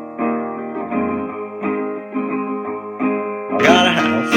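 Guitar chords strummed in a steady rhythm, each chord ringing into the next, with a brief voice-like sound near the end.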